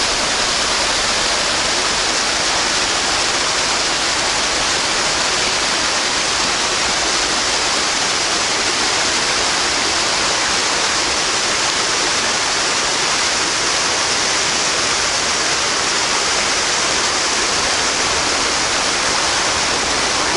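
Steady rush of water churning in a concrete trout pool, an even hiss with no breaks.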